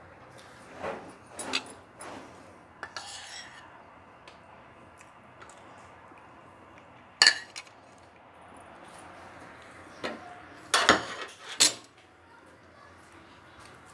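Metal spoons clinking against a ceramic plate and an aluminium cooking pot: a few scattered clinks, the sharpest about seven seconds in and a quick run of clinks near the end.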